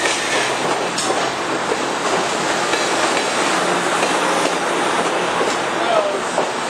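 Amtrak Pacific Surfliner bilevel passenger cars rolling slowly past along the platform: a steady rolling noise of wheels on rail, with a sharp click about a second in and a brief faint wheel squeal near the end.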